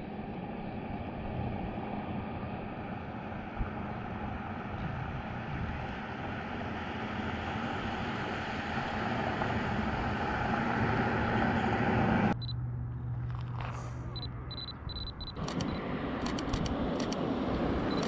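Steady wind and road noise from the highway, growing slowly louder and then cutting off suddenly about twelve seconds in. Near the end, a camera shutter fires in a quick run of clicks.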